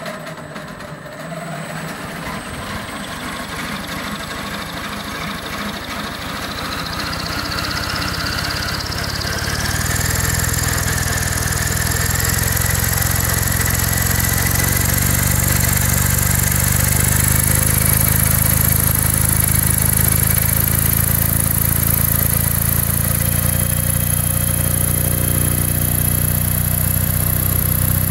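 Electric motor driving a homemade collective-pitch rotor through a 3D-printed plastic bevel gearbox. It spins up with a whine that rises in pitch and grows louder over the first ten seconds, then runs steadily at speed with the rotor whirring.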